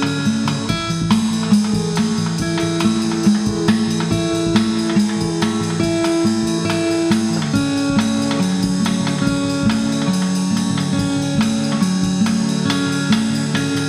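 Background music: an acoustic guitar picking a steadily repeating pattern of notes.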